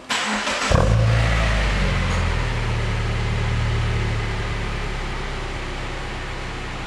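Subaru Legacy BR9's naturally aspirated 2.5-litre flat-four starting through a Tommykaira dual-exit aftermarket exhaust (equal-length centre pipe and rear muffler section). The starter cranks briefly, the engine catches under a second in and flares, then settles into a fast idle that gradually quietens.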